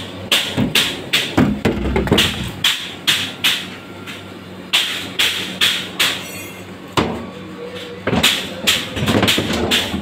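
Sharp percussive knocks repeating a few times a second, pausing briefly twice, over a steady low hum.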